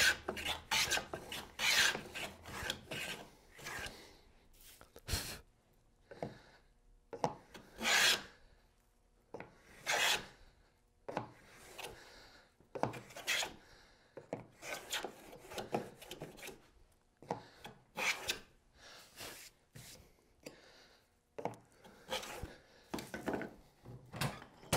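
Wooden moving fillister plane, its nicker removed, taking repeated strokes along a board's edge to cut a rabbet: a rasping hiss as the iron shaves wood on each pass, roughly one stroke every second or two.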